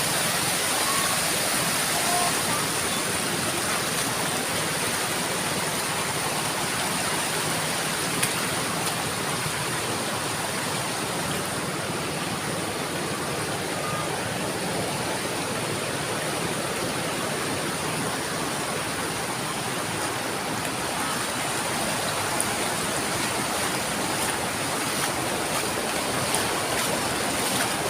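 River water rushing over rocks: a steady, even rush of noise that does not let up.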